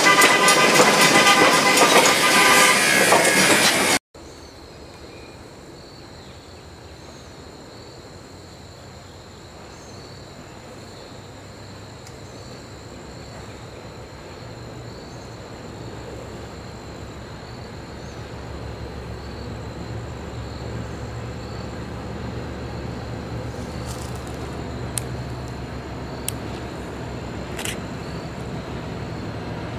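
A 4-4-0 steam locomotive passing close and loud, then an abrupt cut after about four seconds. A diesel locomotive approaches after that, its low engine rumble slowly growing louder.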